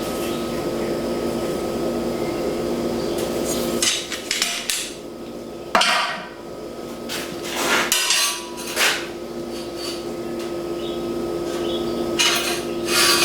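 Metal clanking and knocking: clusters of sharp strikes with a ringing tail about four, six, eight and thirteen seconds in, over a steady hum.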